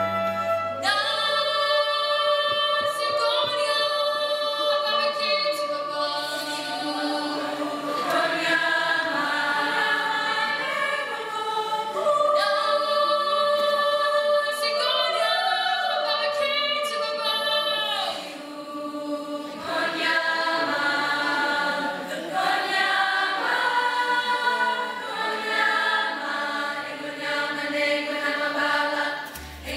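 Choir of mixed young voices singing, mostly unaccompanied. A low held orchestral chord cuts off about a second in, and low instruments come back in right at the end.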